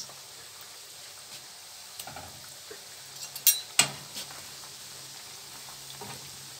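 Rings of yoyo dough frying in hot oil in a pan, a steady sizzle. About three and a half seconds in come two sharp metal clicks, with a few fainter ones after, as forks knock against the pan while turning the rings.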